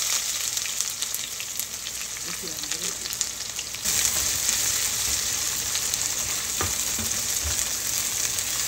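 Sliced red onions sizzling in hot oil in a non-stick wok, stirred with a spatula. The sizzle gets louder about four seconds in as the onions are turned over, with a few light scrapes of the spatula.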